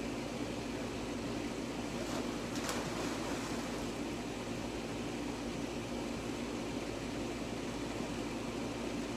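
Steady low rushing hum of outdoor background noise, with a faint, brief splash about two and a half seconds in as a swimmer drops into a backyard pool.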